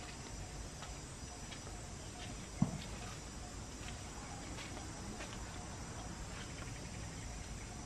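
A macaque shifting its body on a slatted bamboo bench gives one dull thump about two and a half seconds in. Under it is a steady low outdoor background with faint scattered ticks.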